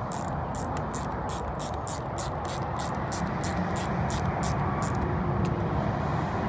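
Small ratcheting screwdriver clicking steadily, about three to four clicks a second, as it backs out a screw on an ATV's thumb-throttle housing; the clicking stops about five seconds in. A steady low background rumble runs underneath.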